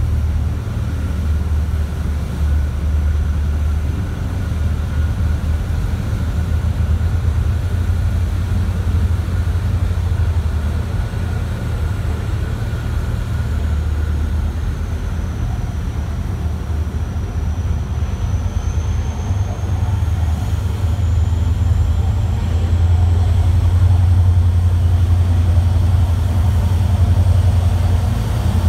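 High-speed catamaran ferry's engines running with a deep, steady drone as it turns away from the pier under power, growing louder near the end as it swings broadside. A faint high whine dips and then rises in pitch midway.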